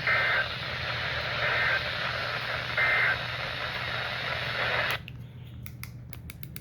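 EAS end-of-message data bursts on a NOAA Weather Radio broadcast: three short two-tone digital chirps about a second and a half apart over the radio's steady hiss. The hiss cuts off suddenly about five seconds in, leaving faint clicks.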